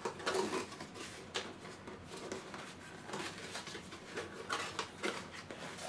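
Irregular rustling, scraping and soft clicks of a small cardboard box being opened by hand and its contents pulled out.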